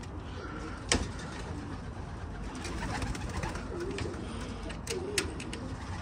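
Domestic pigeons cooing, with a sharp click about a second in and a couple more near the end.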